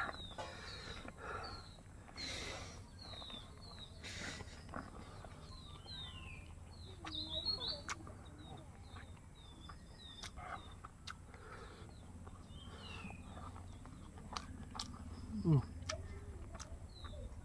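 Small birds chirping repeatedly in the background, each call a short falling chirp, over soft clicks and smacks of someone eating with his hand.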